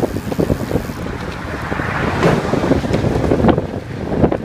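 Wind buffeting a moving microphone: an uneven rushing rumble with irregular gusts, growing a little louder about two seconds in.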